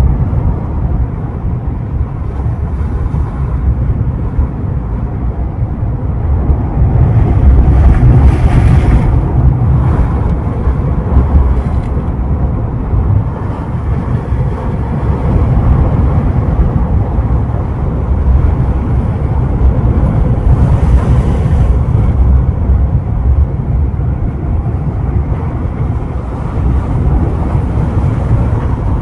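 Ocean surf breaking and washing ashore, with wind rumbling on the microphone. The wash swells louder twice, about eight and twenty-one seconds in.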